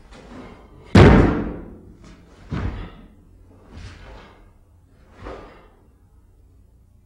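Sharp impact sounds from a karate kata performed barefoot on a wooden floor: feet stamping and landing and the gi snapping with each technique. The loudest comes about a second in and rings on briefly, a second strong one follows about a second and a half later, then two fainter ones.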